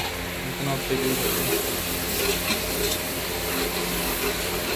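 A metal ladle stirring onion-tomato masala as it sizzles in an aluminium pot, with the ladle now and then scraping the pot, over a steady low hum. Freshly added garlic and ginger are frying in the masala.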